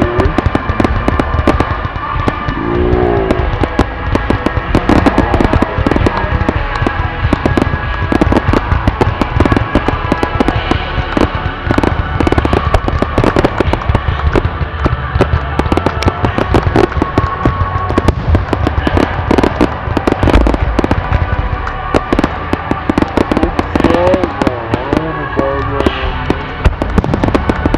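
Fireworks finale: many aerial shells bursting in rapid succession, overlapping bangs and crackles several times a second without a break.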